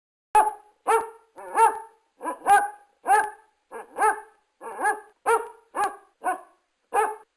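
A dog barking repeatedly: a dozen or so short barks at about two a second, starting just after the beginning.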